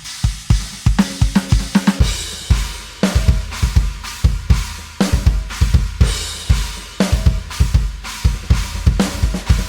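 Electronic drum kit samples from an e-drum module playing a groove: bass drum, snare, hi-hat and cymbals in a dense, steady run of hits.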